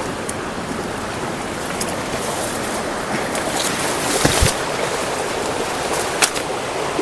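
Jungle stream running over rocks: a steady wash of flowing water, with a few short sharp knocks, the loudest a little after four seconds in.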